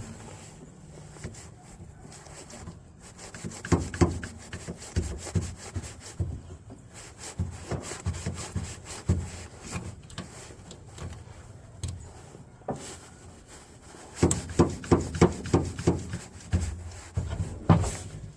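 Hand-held hydraulic crimping tool being worked to crimp a lug onto heavy jumper cable: rubbing, creaking handle strokes, irregular at first, then a quicker, regular run of strokes near the end.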